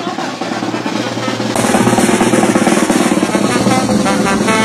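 Street brass band playing: rapid snare and bass drum beats, with trombones and trumpets coming in near the end.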